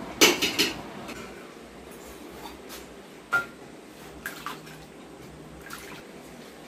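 Steel ladle clinking against a steel pan and plates as dal is ladled onto rice, with wet pouring and dripping. There are a few sharp clinks: a quick cluster at the start, then single or paired ones spread through the rest, one with a short metallic ring.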